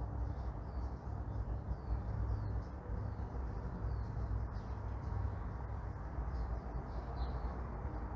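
Morning neighbourhood ambience: a steady low rumble of distant traffic under faint, short bird chirps repeating every second or so.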